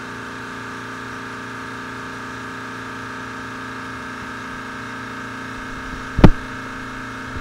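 Steady hum of room noise with a few steady tones, broken near the end by two sharp thumps about a second apart: handling noise on a handheld microphone.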